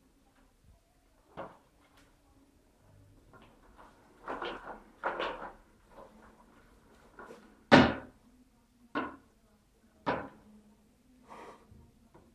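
Clear plastic hamster exercise ball knocking and clattering as a kitten bats it across a hard floor and into furniture. The knocks are irregular: a couple of rattling ones about four to five seconds in, a sharp loudest bang near the middle, and a few lighter knocks after it.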